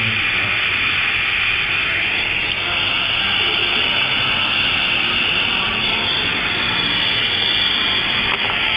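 Gas bench torch used for glassworking, burning with a steady hiss.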